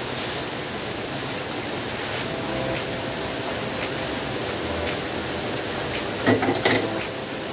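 Hot broth pouring from a stainless-steel pot into a wok, a steady watery hiss as it hits the hot egg-and-noodle mixture. Near the end a short metallic clatter of pot and ladle against the wok.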